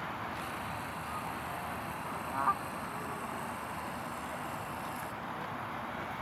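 Steady outdoor background noise with a single short bird call, a brief wavering cry, about two and a half seconds in.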